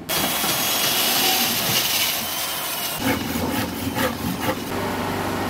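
Handsaw cutting through a wooden plank: a continuous rasp, then quick back-and-forth strokes at about four a second.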